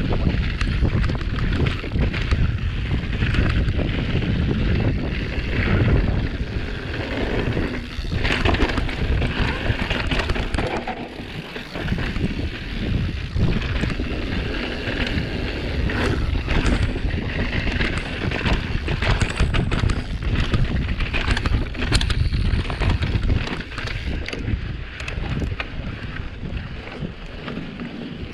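Mountain bike descending a dusty dirt trail at speed: wind buffeting the action camera's microphone, tyres rolling on loose dirt, and frequent rattles and knocks from the bike over bumps.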